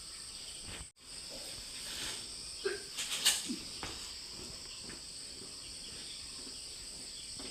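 Insects chirring steadily in a continuous high-pitched drone, with a few faint short sounds and a light click about three seconds in.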